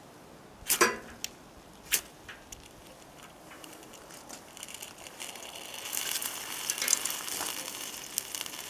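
Ferro rod scraped with a striker over dry grass tinder, a few sharp rasping strikes in the first two seconds. From about halfway the dry grass catches and crackles, growing louder toward the end.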